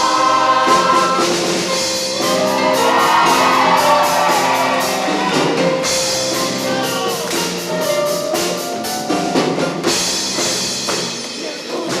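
Show choir singing with live band accompaniment and a drum kit. The voices hold long notes that glide up and down between sung lines, over a steady beat.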